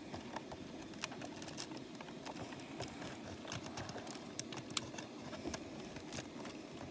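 Faint, scattered clicks of plastic LEGO bricks as a locomotive body is gripped and pried apart by hand, a few small clicks spread irregularly through, over a steady low background noise.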